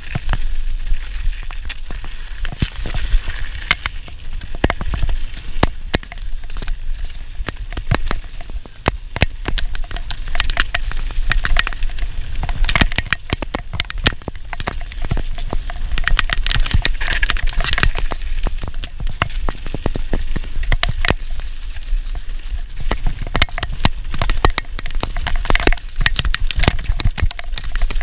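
Mountain bike riding fast down a rough trail, heard from an on-board camera: the tyres run over loose stone and the bike rattles, with many clicks and knocks, while wind rumbles on the microphone.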